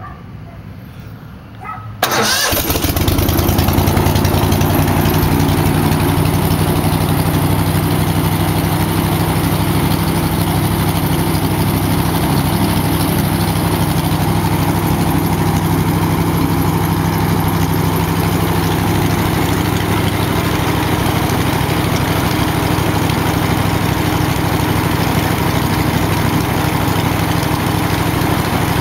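A straight-piped Generac four-stroke engine on a powered-paraglider trike starts: it catches about two seconds in and then runs steadily.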